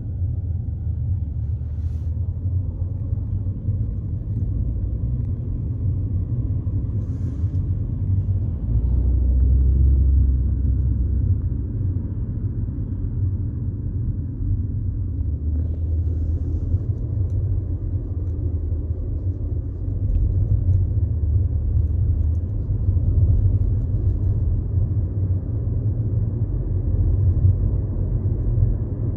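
Steady low rumble of a car driving slowly, heard from inside the cabin: road and engine noise, with no other clear sounds.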